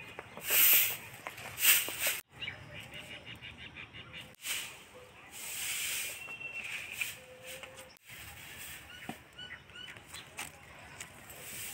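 Outdoor garden sound in short snippets that break off abruptly three times. There are a few loud rushing bursts of noise near the start and faint, short bird calls scattered throughout.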